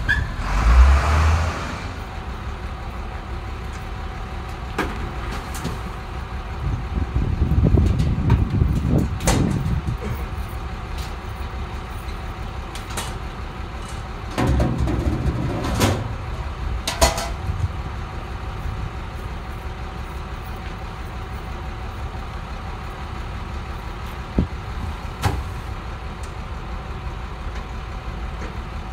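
Leach Alpha rear-loading garbage truck running steadily, with two louder surges of rumble and a scattering of sharp clanks and knocks.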